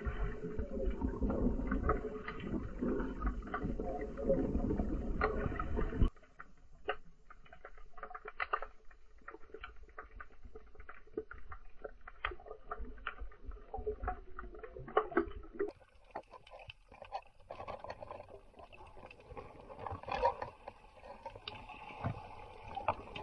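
Underwater sound of a rocky reef: a muffled water rumble and swishing for about the first six seconds, then a sudden drop to a quieter background of scattered sharp clicks and crackles.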